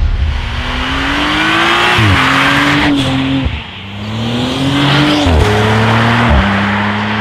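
Audi RS5 Sportback's twin-turbo V6 accelerating through the gears. Its pitch climbs and then drops at an upshift about two seconds in. The engine eases off briefly in the middle, climbs again, and shifts up twice more near the end.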